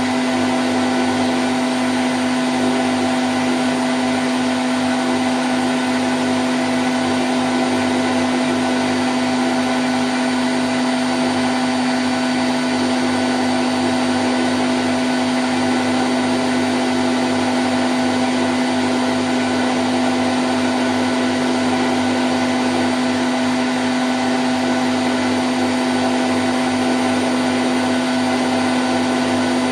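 Candy Grand O' F106 washing machine spinning at 1000 rpm: a steady hum over a constant rushing noise, with no change in speed.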